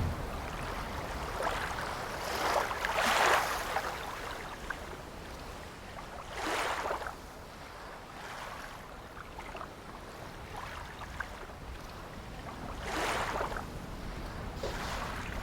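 Sea waves washing in: a steady rush of surf that swells and fades several times, with wind.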